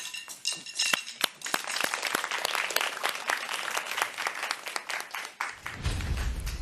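A small group applauding, many hands clapping in a room. A low rumble comes in near the end.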